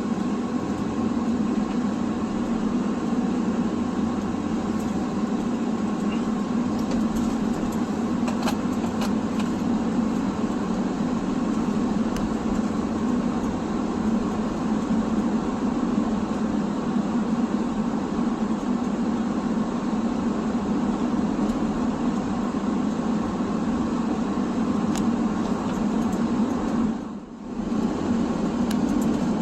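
Steady road and engine noise inside a moving car's cabin, with a brief drop in level near the end.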